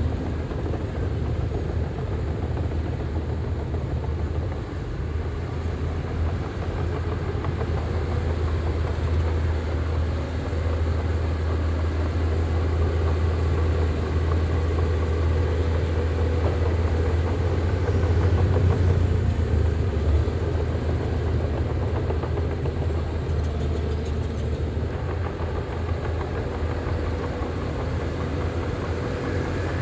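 Heavy diesel earthmoving machinery running steadily with a deep engine drone, swelling briefly a little past the middle.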